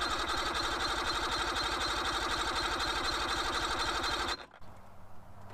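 Electric starter cranking a Mercury 75 hp two-stroke outboard over steadily for about four seconds without it firing, then stopping suddenly: a compression test, with a gauge in one spark-plug hole reading about 90 PSI.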